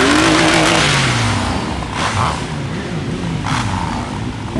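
Several motorcycle engines revving in a slow-moving group, the pitch climbing and dropping again over and over, the strongest rev right at the start. Short rushes of hiss come about two and three and a half seconds in.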